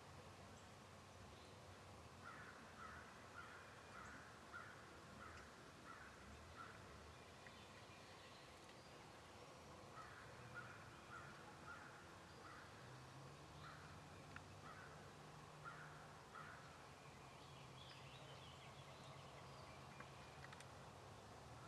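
Faint bird calls: two runs of short repeated notes, about two a second, one starting a couple of seconds in and another around the middle.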